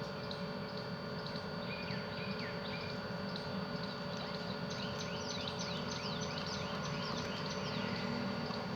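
Small birds chirping: a few short, falling chirps about two seconds in, then a quick run of them, about four a second, in the second half. A steady hum with a few fixed tones runs underneath.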